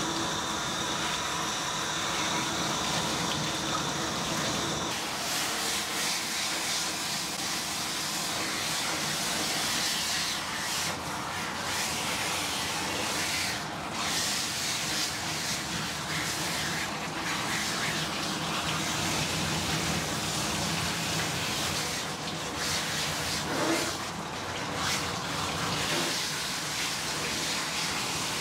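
Water spraying steadily from a hand-held grooming sprayer with a brush head onto a dog's wet, soapy coat in a stainless steel bathing tub, with a thin high whistle for the first five seconds.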